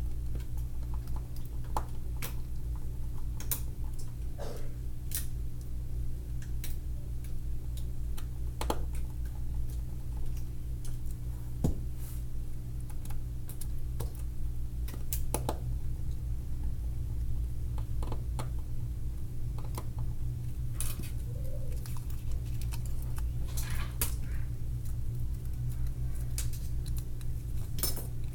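Irregular small clicks and taps of hard objects being handled, a few scattered every couple of seconds, over a steady low electrical hum.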